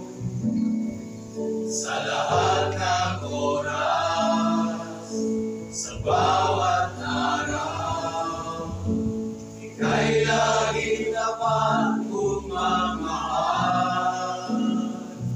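Mixed choir of men and women singing a gospel song together, in phrases a few seconds long.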